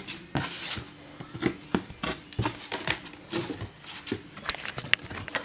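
Handling noise from plastic vacuum attachments being put away: irregular knocks, clicks and rubbing.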